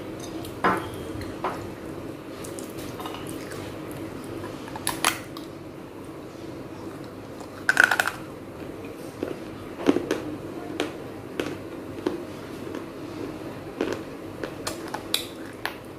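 Sharp cracks and crunches of baked clay as a tiny clay pot is bitten and chewed, with clay clinking against a glass plate. The sounds come one at a time every second or so, the loudest about halfway through.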